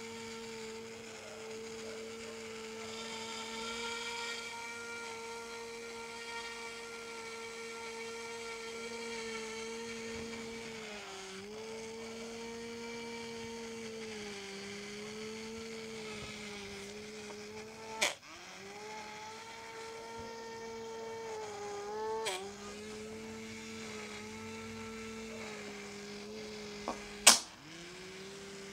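Homemade micro brushless motor, a small magnet rotor in a hand-wound copper coil switched by a computer-fan driver chip off a 3.7 V lithium cell, spinning at high speed with a steady whine. Its pitch sags and climbs back several times, and three sharp clicks, the loudest near the end, each drag the whine briefly lower before it recovers.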